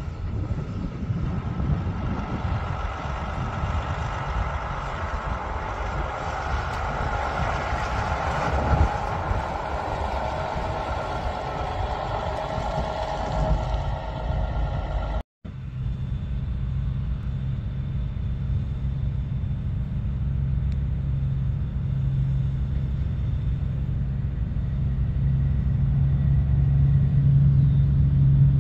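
Diesel semi truck pulling a lowboy trailer drives past, its engine and tyre noise swelling and fading. After a cut, a second big-rig diesel engine runs with a steady low drone that grows louder as it approaches.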